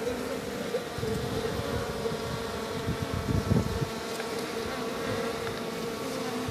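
Swarm of honeybees buzzing steadily around an opened wall hive, a continuous drone of many wings.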